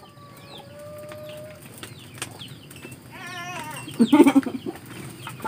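Birds chirping repeatedly in the background, with a chicken's wavering call about three seconds in, followed by a short, louder, lower sound.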